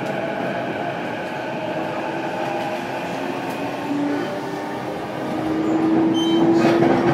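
Inside an E233-series electric train's motor car: the inverter and traction motors hum over running noise. About four seconds in, a tone sets in and rises slowly in pitch while the sound grows louder, as the train accelerates.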